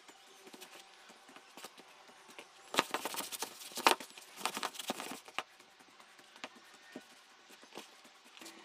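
Hands kneading flour-dusted doughnut dough in a container: irregular soft pats and clicks, busiest from about three to five seconds in.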